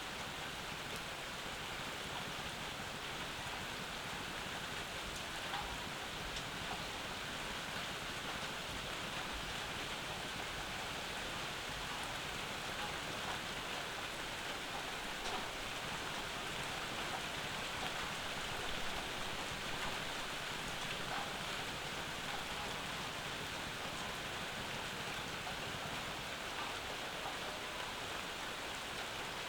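Steady summer rain falling, with scattered single drops ticking on nearby surfaces.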